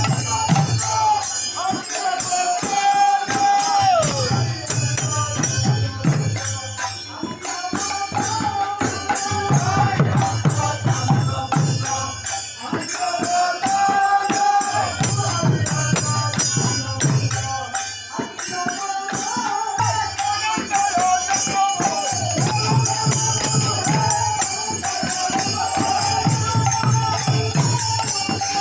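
Kirtan music: khol drums beaten in a fast, dense rhythm with large hand cymbals clashing along, and voices chanting a held, sliding melodic line over them.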